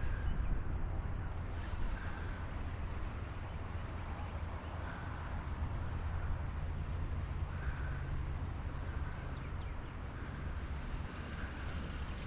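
Wind rumbling steadily on the microphone, a low continuous buffeting with a faint hiss above it.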